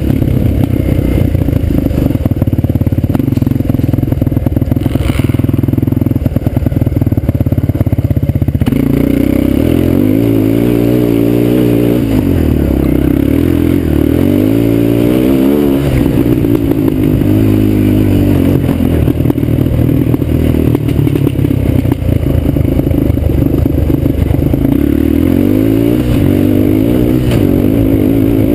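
Suzuki LTZ 250 quad's single-cylinder four-stroke engine running under load, heard close up. It holds a steady drone for the first several seconds, then the revs rise and fall again and again as the throttle is worked over the terrain.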